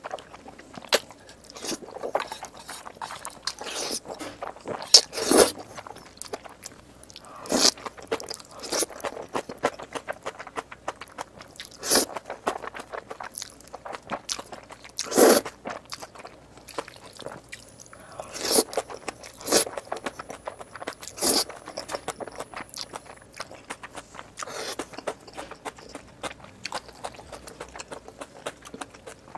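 Close-miked eating of jjajangmyeon black bean noodles: wet chewing clicks throughout, with louder slurps and bites every few seconds.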